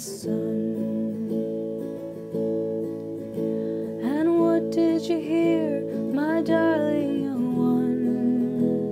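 Folk song: steadily strummed acoustic guitar chords, with a voice singing a melody over them from about four seconds in.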